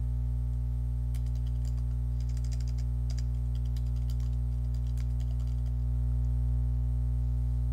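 Computer keyboard typing: a quick run of key clicks starting about a second in and lasting about four seconds, over a steady low hum.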